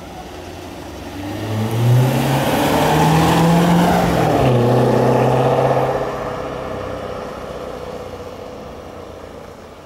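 Chevrolet Corvette C7's V8 accelerating past: the engine note climbs, drops once at a gear change about four and a half seconds in, holds, then fades as the car drives away.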